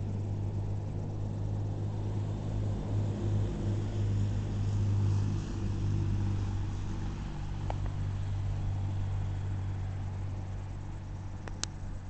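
Electric RC plane's brushless motor and propeller droning overhead: a low, steady hum that dips briefly a few times as the throttle changes.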